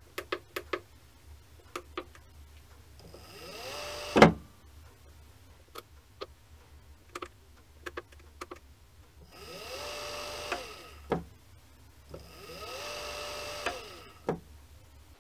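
Brushless servo motor for an industrial sewing machine being switched on and off three times, each run a whine that rises in pitch and then holds steady. The first run ends abruptly in a loud clunk with the braking set high. The later two, with braking set to 0, wind down smoothly in a falling whine. Sharp clicks of the controller's push-buttons and motor switch come between the runs.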